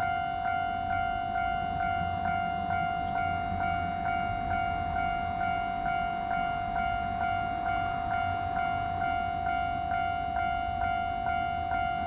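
Japanese railway level-crossing alarm ringing: an electronic bell struck about twice a second over a steady ringing tone. It sounds while a train is approaching the crossing.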